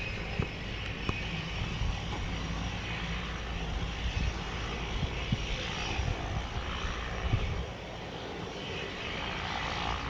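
Single turboprop engine of a Cessna 208B Caravan, a Pratt & Whitney PT6A, running steadily as the aircraft rolls along the runway after touchdown.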